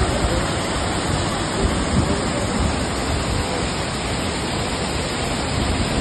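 Waterfall in heavy spate, a mass of white water pouring over rock ledges, making a steady, full rush of noise.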